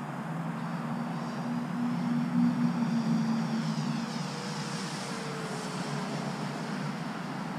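Electric motor and propeller of a 1600 mm Flightline Spitfire RC warbird making a low pass: a whine that drops in pitch as the plane goes by, about four to five seconds in.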